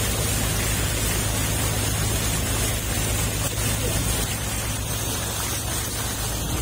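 Motorboat engine running steadily with a low hum, under the rush and splash of water churned up in the boat's wake.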